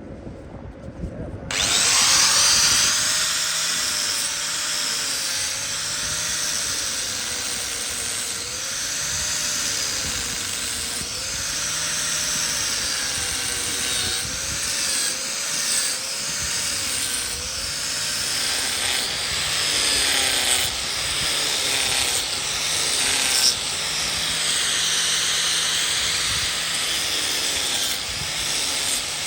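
Power tool cutting wood, starting abruptly about a second and a half in and running on steadily with a dense, scraping noise that wavers slightly.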